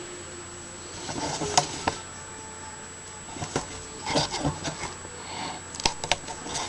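Handling noises: a scattering of light knocks and clicks with brief rustling, as things are moved and set down by hand.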